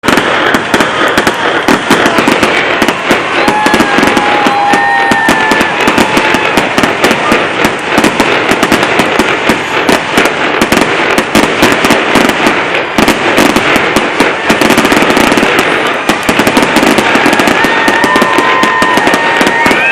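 A fireworks display firing a dense, continuous barrage of rapid bangs and crackles. Long, high, steady whistles come in a few seconds in and again near the end.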